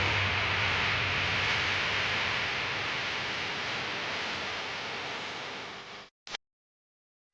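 Steady rushing background noise of the arena, slowly fading, then the sound cuts out to dead silence about six seconds in, with a short blip of the same noise just after.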